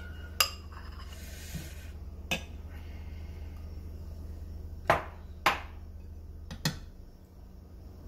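Steel spoon clinking and scraping against a bowl and a non-stick pan as semolina batter is poured and spread: about five sharp clinks, with a short scrape about a second in, over a steady low hum.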